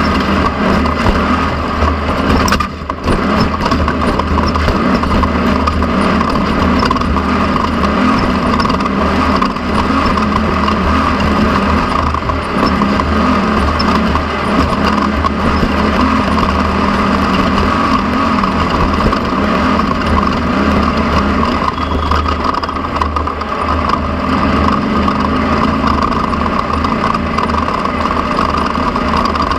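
Off-road race vehicle's engine running steadily under way, heard from on board, its drone mixed with the noise of the vehicle moving over the ground.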